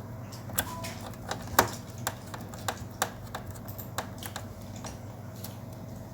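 A dozen or so irregular sharp clicks and taps of small hard parts being handled and set down, the loudest about a second and a half in, over a steady low hum.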